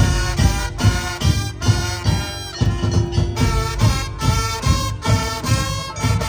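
A band playing music with a steady, fast beat of low drum and bass hits, about two to three a second, under a melody line of held notes.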